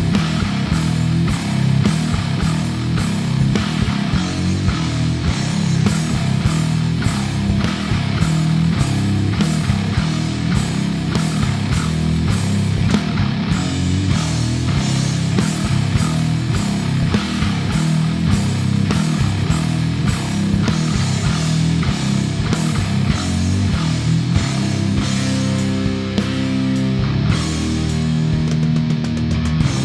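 Heavy instrumental rock from a bass-and-drums duo: bass guitar played through effects over a drum kit with dense, driving hits. Near the end some held pitched notes come in over the beat.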